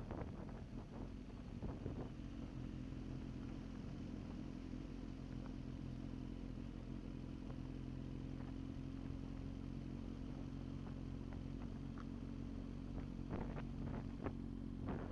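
Motorcycle engine running at steady revs during a ride, its pitch holding level, with a few short knocks near the end.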